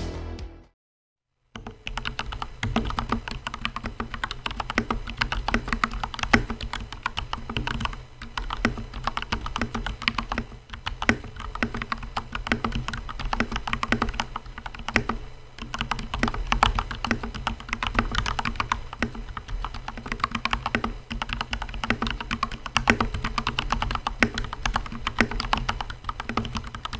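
Typing sound test on a custom mechanical keyboard: Gateron Black KS3X47 linear switches under PBT OEM-profile keycaps, in an acrylic sandwich case with foam in the base and lubed, clipped plate-mounted stabilizers. Continuous fast typing starts about a second and a half in, after a brief silence.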